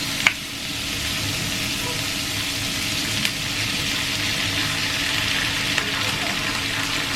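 Garlic and bell peppers sizzling steadily in hot oil in a wok, with a few light clicks of a utensil stirring them as tomato sauce goes in.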